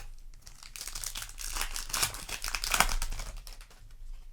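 Foil wrapper of a Yu-Gi-Oh! booster pack crinkling as it is handled, a dense crackle that builds from about a second in and fades near the end.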